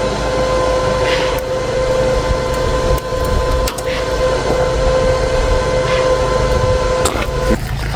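Small arc welder laying a bead on a steel hub and shaft: a steady electrical buzz over a crackling arc, which stops abruptly near the end.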